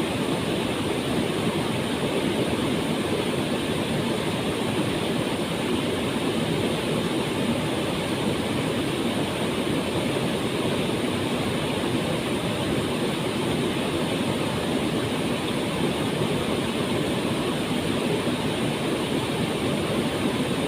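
Waterfall: water falling and splashing, a steady rushing roar.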